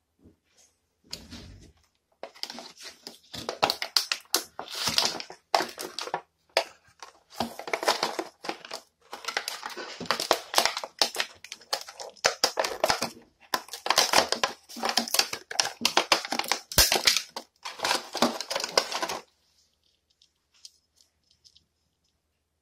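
Irregular crinkling and crunching handling noises close to the microphone. They run in dense bursts and stop abruptly about three-quarters of the way through.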